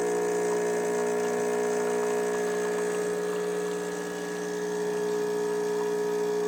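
Rancilio Silvia espresso machine's vibratory pump running with a steady buzzing hum while it pulls an espresso shot.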